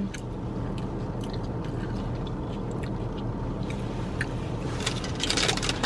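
Steady low hum of a car's air conditioning running inside the cabin, with faint chewing clicks and a brief rustle about five seconds in.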